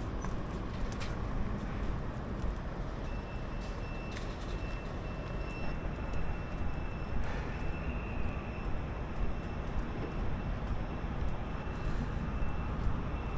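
Steady rumble of vehicle traffic and engines, with a faint thin high whine from about three seconds in until near the end.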